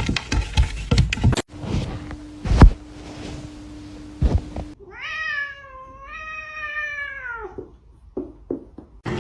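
A cat's single long meow, nearly three seconds, rising a little and then falling away at the end. It comes about halfway through, after a few seconds of knocks and thumps.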